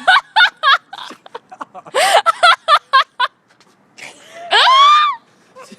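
Young women giggling in quick, high-pitched bursts, then one longer squeal that rises in pitch near the end.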